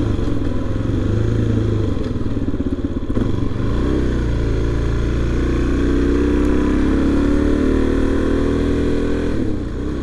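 2019 Suzuki DR-Z400's single-cylinder four-stroke engine running while under way, with its pitch dipping and wavering about three to four seconds in, then climbing slowly as the bike speeds up.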